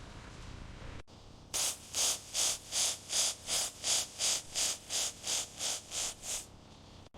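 Rhythmic back-and-forth rubbing strokes on a hard surface, about three a second. They start about a second and a half in and stop near the end.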